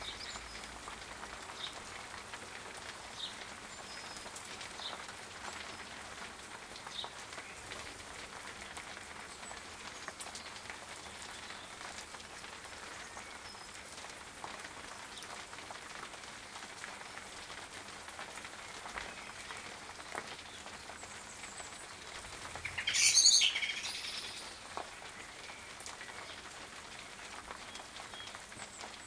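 Steady rain falling on a garden pond, with faint short bird chirps now and then. About three quarters of the way through comes a single louder burst lasting about a second.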